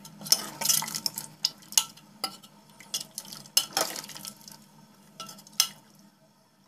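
Steel spoon stirring a thick mixture in a non-stick pan, with irregular scrapes and clinks against the pan that thin out near the end.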